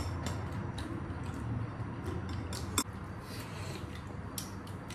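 Scattered light clicks and clinks of chopsticks, forks and spoons against ceramic bowls during a meal, the sharpest a little under three seconds in, over a low steady hum.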